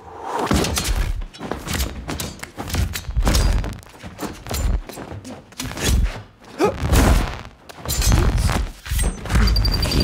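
Personal energy-shield sound effect during a close sparring fight: a string of heavy, deep thuds, roughly one a second, with glitching, clicking crackle as blows land on the shields. The effect is a synthesizer-designed sound grown out of a deep purr made from a filtered machine gun.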